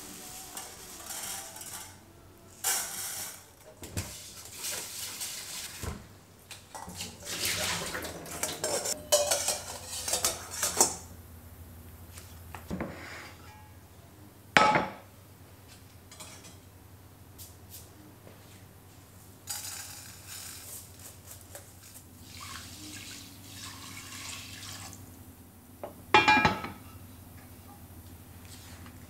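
Kitchen handling sounds: dry rice pours into a stainless steel bowl, then water splashes and dishes clatter. There is a sharp clink about halfway through and a loud, ringing metal clank from the cast iron pot and lid near the end.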